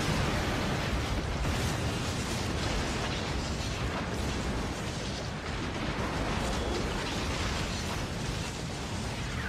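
Film sound effects of a starship crashing through another's hull: a sudden loud crash at the start, then a continuous din of breaking plating and flying debris.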